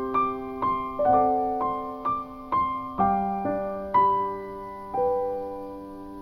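Background piano music: a slow melody of single struck notes over held chords, with a pause near the end.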